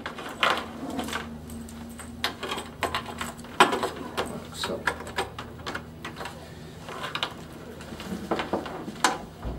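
Cables and plug connectors being handled and pulled through a DVR safe box: irregular clicks, taps and light rattles, with a sharper knock about three and a half seconds in and another near the end.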